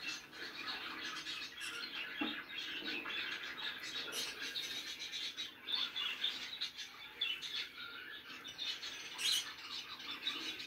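Birds chirping and squawking without a break, many short overlapping calls.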